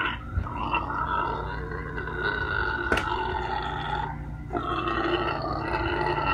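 A hungry pet pig squealing behind a closed door: two long, drawn-out squeals, the first lasting about three and a half seconds and the second starting about four and a half seconds in, with a sharp click near the three-second mark.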